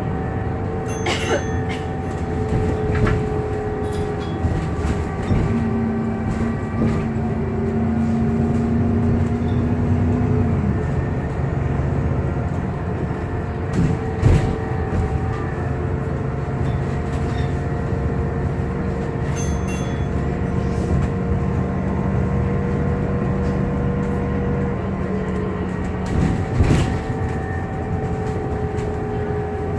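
Alexander Dennis Enviro 400MMC double-decker bus running, with a steady whirring whine of several tones that drift slightly in pitch over engine and road rumble. There are a few brief knocks or rattles, the loudest about 14 seconds in and again near the end.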